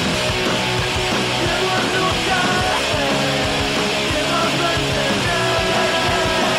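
Loud hard rock theme music with electric guitar, with a sliding melodic line over the steady band from about two seconds in.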